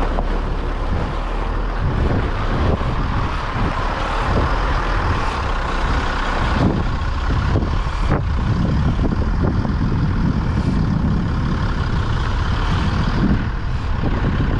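Twin-steer crane truck's diesel engine running close by as the truck manoeuvres with its load. A couple of sharp knocks come about halfway through.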